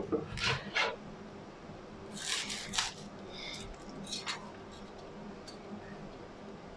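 Large kitchen knife cutting through a whole red cabbage on a plastic cutting board, a few crisp cuts in the first three seconds. Then a light clink as the slices are moved onto a metal tray.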